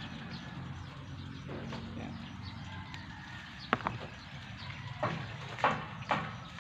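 Dry twigs and palm fronds crackling and snapping underfoot: two quick sharp snaps about halfway, then three louder crunches near the end, over a steady low rumble.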